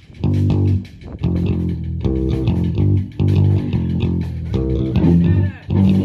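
Amplified electric guitar picking single low notes in short phrases as a band sound check, with a note slid or bent in pitch about five seconds in.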